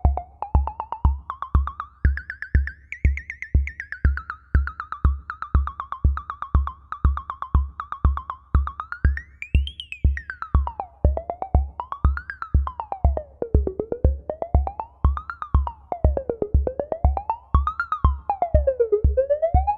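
Modular synthesizer patch through the ST Modular Boba Fett module: a steady low kick pulse about two and a half times a second under a pitched tone that glides up and down. In the second half the tone settles into a regular rise and fall, about every two and a half seconds.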